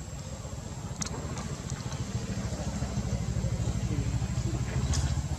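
An engine running with a low, steady pulsing rumble that grows gradually louder, with a couple of faint clicks.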